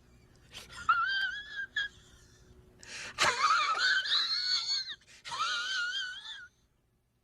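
A high-pitched, wavering, wheezing laugh, in three spells, the middle one the loudest, then cut off abruptly to silence near the end.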